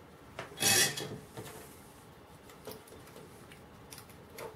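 A spring-loaded solder sucker firing once, about three-quarters of a second in: a sharp snap with a short rush of air as it pulls melted solder out of a circuit-board hole. A few faint ticks of handling follow.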